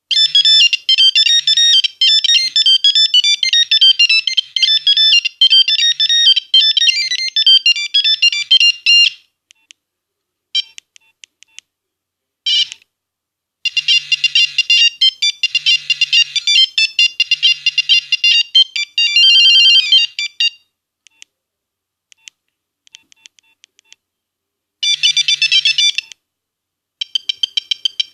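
Nokia 1101 mobile phone playing its monophonic ringtones, one beeping note at a time. A tune runs for about nine seconds, then a few short snatches break off after a note or two, then another tune plays for about seven seconds, with brief bits near the end.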